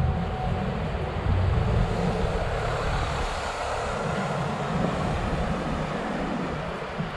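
City street traffic: a car passing close by, a steady engine rumble and tyre noise that is loudest in the first couple of seconds and fades slightly toward the end.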